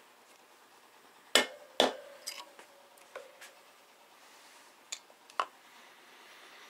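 Two sharp taps about half a second apart, a rubber mallet striking a metal valve stem seal installer to seat a stem seal on a VR6 cylinder head's valve stem, each with a short metallic ring. Lighter clicks of metal tool and parts follow.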